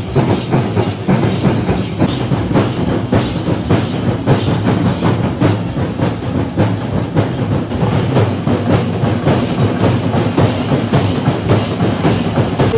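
Kerala temple percussion ensemble playing loud, fast and dense: many drums beating together with clashing hand cymbals in a steady driving rhythm.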